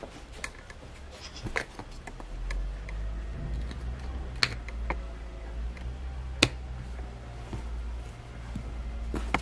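Scattered sharp clicks and taps of small wooden jigsaw puzzle pieces being handled, the loudest two about four and six and a half seconds in, over a low rumble.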